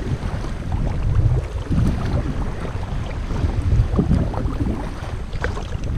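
Wind buffeting the microphone over water sloshing and splashing around a folding kayak at sea, with irregular short splashes.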